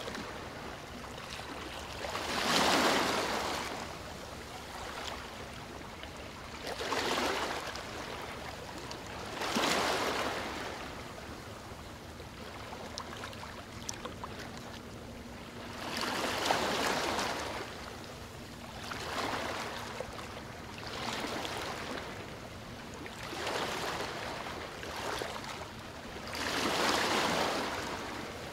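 Rushing water noise coming in irregular swells, each about a second long and two to four seconds apart, over a steady low wash.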